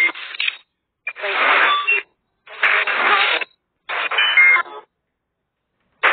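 Ghost hunting app's spirit-box output: short bursts of radio-like static with garbled fragments, one about every second, each cut off into dead silence before the next.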